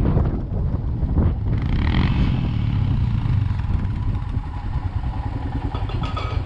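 Motorcycle engine running steadily while riding on a rough mountain road.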